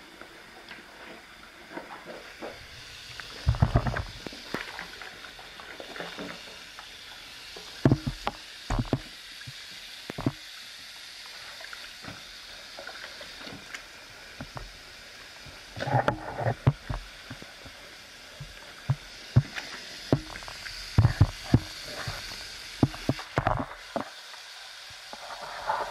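Soap foam fizzing with a steady crackling hiss, broken by irregular wet knocks and sloshes as shoes and objects shift in the sudsy water. The loudest knocks come about four seconds in and again in clusters around sixteen and twenty-one to twenty-three seconds.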